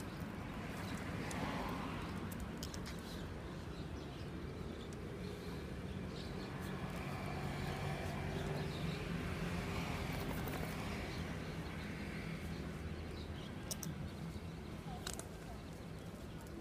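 Outdoor ambience: a steady low hum like distant traffic, with a few short clicks and no barking.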